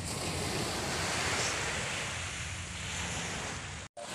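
Small waves breaking and washing up a sandy beach, with wind buffeting the microphone. The sound drops out for an instant just before the end.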